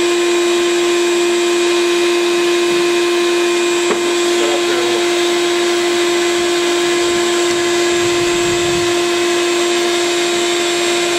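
Bee vacuum's motor running steadily: a constant hum over a rush of air, with one short click about four seconds in.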